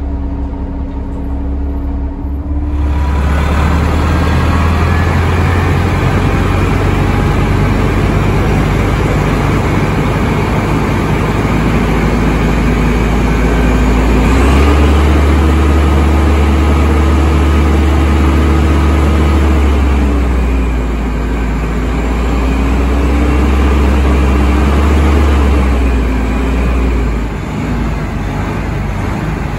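Detroit Diesel Series 50 engine of a CTA Flxible Metro bus idling, then revved twice. Each time the engine climbs to a higher speed, holds for a few seconds and drops back to idle. The first few seconds, before a cut, are bus-ride noise.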